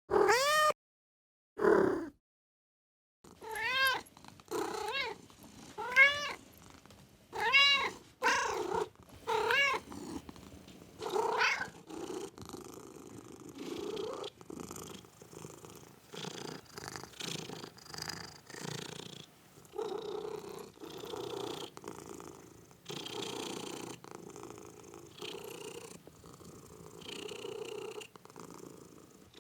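A domestic cat meowing about nine times, each meow rising and falling in pitch, then purring with a steady rhythm of about one pulse a second.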